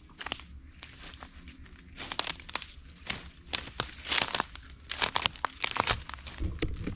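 Dry leaves and brush crackling and crunching under a hand, with papery snapping and tearing as a wasp comb is pulled loose. The crackles come in quick clusters, busiest in the middle, and there is a dull low bump near the end.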